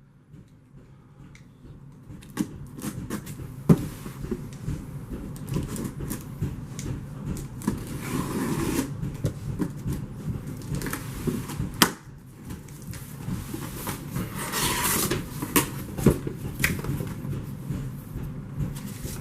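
Cardboard box being opened and its contents unpacked: scattered knocks, scrapes and rustling of packaging, with two sharp knocks about 4 and 12 seconds in.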